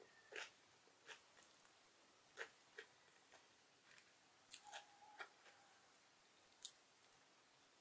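Faint eating sounds: a scattering of short, sharp clicks of chopsticks against a ceramic plate, with soft chewing of fried chicken wing. The loudest click comes near the end.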